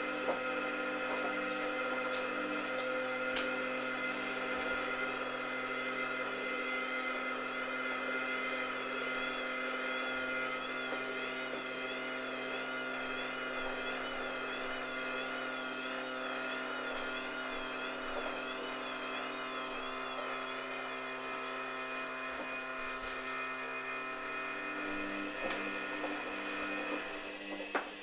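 Hoover Dynamic washing machine's drum motor turning the drum steadily for a long stretch: a whining hum with several held tones and a wavering high whine over it. The motor stops about a second before the end.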